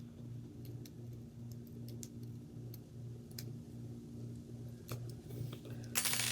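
Faint scattered small clicks of a small screw being driven into an RC crawler's metal driveshaft with a hand tool, over a steady low hum that pulses about two to three times a second. Near the end comes a louder rustle of parts being handled.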